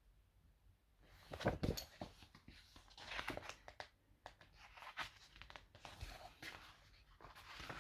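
Paper rustling and crinkling with small knocks and clicks, as the pages of a picture book are handled and turned; it starts about a second in.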